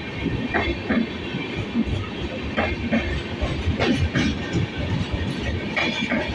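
Passenger train coaches rolling past on steel rails: a steady low rumble with a clickety-clack of wheels over rail joints, the clicks coming in quick pairs every second or two.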